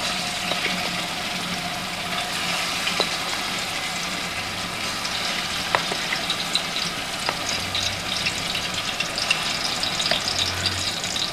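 Hot cooking oil in a large aluminium pot sizzling steadily as spoonfuls of ginger-garlic paste are added and fry in it, with a few light clicks.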